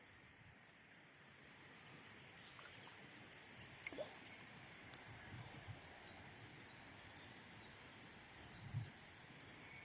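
Faint chorus of small birds chirping in the background, with many short high calls over a steady hiss, and a few soft low thumps.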